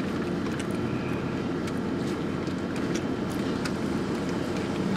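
Steady hum of a car idling with the air conditioning on, heard from inside the cabin, with a few faint clicks.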